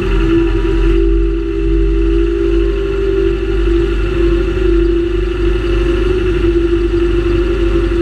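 John Deere 6930 Premium tractor's six-cylinder diesel engine running at steady revs as the tractor drives along, a constant drone with a low rumble beneath.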